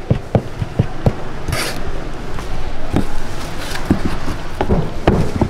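Irregular sharp knocks of a knife or cleaver striking a wooden cutting board as braised pig's trotters are cut up, with a brief hiss about a second and a half in.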